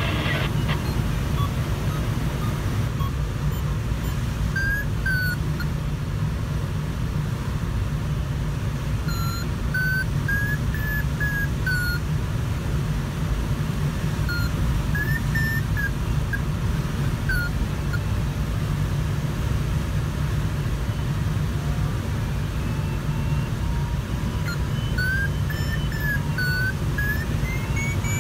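Steady rush of airflow around a Sparrowhawk ultralight glider's cockpit, with an electronic variometer chirping over it in spells of short beeps whose pitch rises and falls, the sign of the glider climbing in rising air.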